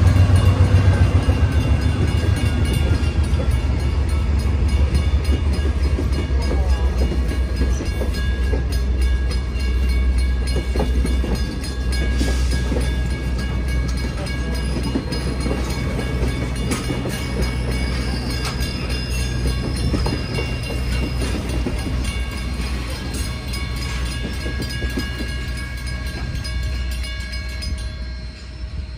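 Railcars of a passing train rolling over a grade crossing, the wheels clicking over the rail joints above a low rumble that is loudest at first and eases as the locomotive moves off. Grade-crossing signal bells ring steadily, and the train noise drops away near the end as the last car clears.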